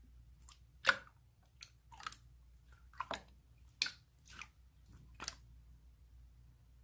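A series of short, irregular clicks and crackles close to the microphone, about a dozen in all, with the sharpest near one, three and four seconds in.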